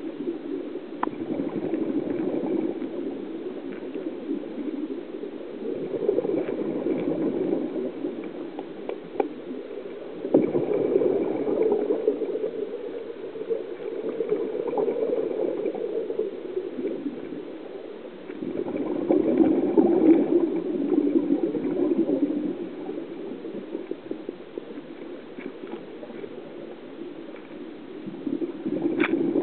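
Scuba diver's exhaled bubbles from the regulator gurgling underwater, coming in swells of a few seconds each with quieter gaps between breaths.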